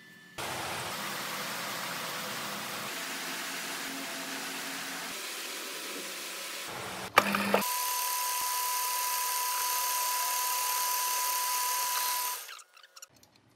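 A power tool running in two long stretches with a sharp click between them. The first stretch is an even hiss. The second carries a steady high whine and cuts off near the end.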